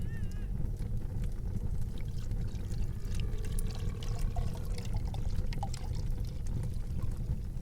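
Tavern ambience: a steady low rumble with many scattered light clinks and knocks, as of mugs and dishes, while liquid is poured. A brief warbling whistle sounds right at the start.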